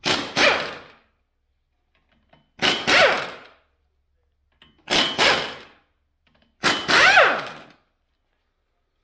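Impact wrench driving at the flywheel bolts of a removed diesel engine, in four bursts of about a second each, a couple of seconds apart, the pitch sliding within each burst.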